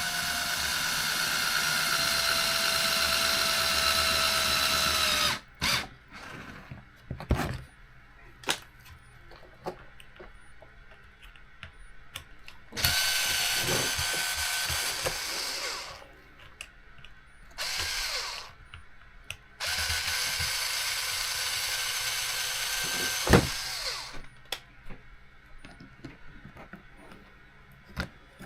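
Small handheld electric driver running in bursts as it drives fasteners into an RC car: a steady motor whine for about five seconds at the start, about three seconds in the middle, a brief run, and about four seconds near the end, with light clicks and taps of small parts between runs.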